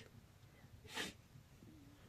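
Near silence broken by one short, sharp breath sound from a person about a second in.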